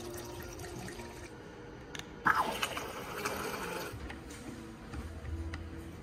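Liquid pouring into a plastic cup. It starts suddenly about two seconds in and runs for about a second and a half.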